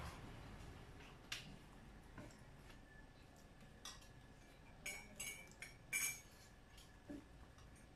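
Faint clinks and taps of cutlery on a plate during eating: scattered light strikes, with the clearest cluster of short ringing clinks about five to six seconds in.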